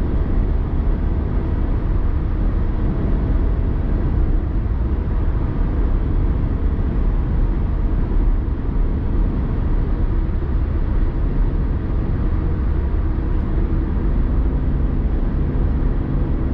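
Steady rumble of a car driving, road and engine noise heard inside the cabin, with no sharp events.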